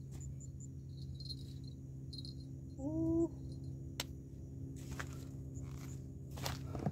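Insects chirping faintly with short, repeated high chirps over a steady low hum. About three seconds in there is one brief, louder pitched sound that rises slightly, and a couple of light clicks come later.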